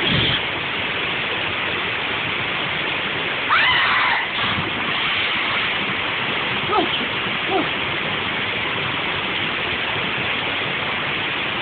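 Steady rushing water, with a brief voice heard over it about three and a half seconds in.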